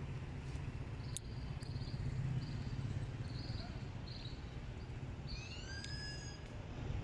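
Outdoor city ambience: a steady low rumble with short high chirps repeating every second or so, and a brief whistled call sliding in pitch about five and a half seconds in.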